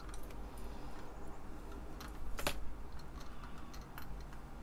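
Scattered light clicks and taps from hands handling a printed circuit board and a soldering iron during soldering, with one sharper click about two and a half seconds in. A low steady hum runs underneath.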